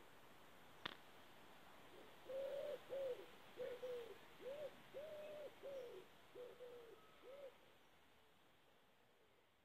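A pigeon cooing: a run of about nine low, arched coo notes over some five seconds, after a single short click.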